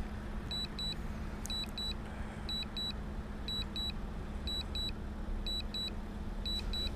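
Drone remote controller sounding its return-to-home alert: a pair of short, high beeps about once a second. A steady low hum and rumble run underneath.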